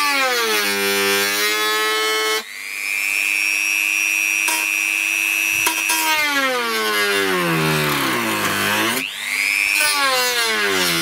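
Dremel rotary tool running with a high motor whine, its pitch sliding down and holding low, then jumping back up, twice over as its speed changes.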